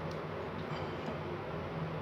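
Steady low background hum and room noise, with a faint click just after the start.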